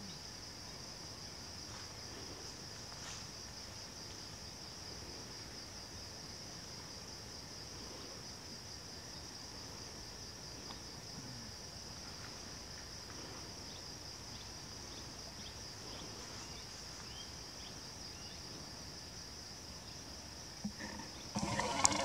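Steady, high-pitched insect chirring that pulses finely, cricket-like. A brief, louder burst of sound comes near the end.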